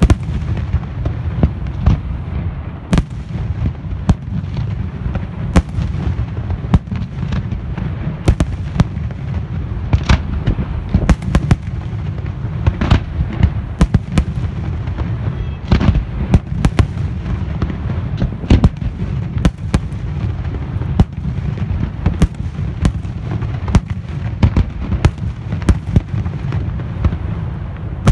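Aerial fireworks shells bursting in rapid, overlapping succession: many sharp reports over a continuous low rumble of booms.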